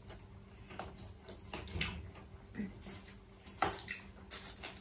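Cooked shrimp being peeled by hand: scattered small crackles and snaps of the shells coming off, the sharpest ones about three and a half seconds in and near the end.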